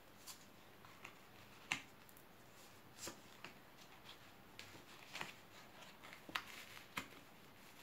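Tarot cards being dealt and laid down on a cloth-covered table: a string of light, irregular taps and flicks of card on card and on the table, the sharpest about two seconds in.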